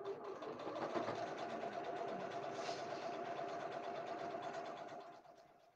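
Electric domestic sewing machine running steadily as it top-stitches at a long stitch length through the layered fabric and wadding of a basket, then slowing to a stop near the end.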